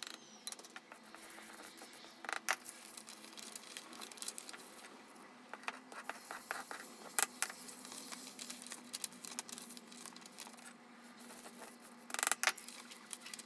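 Steel chisel blade scraping and tapping on paper as it mixes a small pile of powder, a faint, irregular scratching with a few louder scrapes about two, seven and twelve seconds in.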